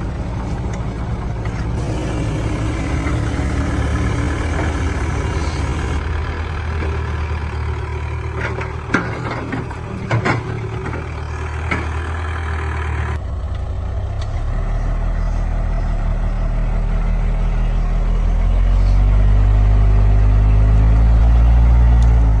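Heavy diesel engine of a logging truck or excavator running under load, with a few sharp knocks about nine to ten seconds in, then revving up louder near the end.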